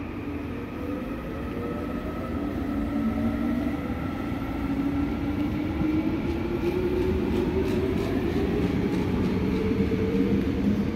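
Suin-Bundang Line electric train pulling out of the station, its traction motors giving a whine that rises steadily in pitch as it gathers speed, over the rumble of the wheels on the rails.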